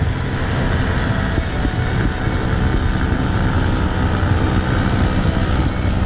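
Paramotor (powered paraglider) engine and propeller giving a steady drone overhead.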